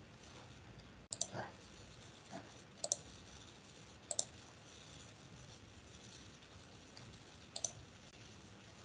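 Computer mouse clicks: four sharp, quiet clicks spread over several seconds, some heard as a quick press-and-release pair, over faint room hiss.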